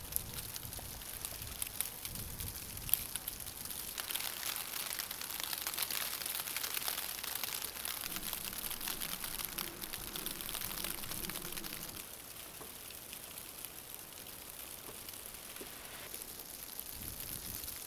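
Light rain falling outdoors: a steady fine hiss with many small drop ticks. It gets a little quieter about two-thirds of the way through.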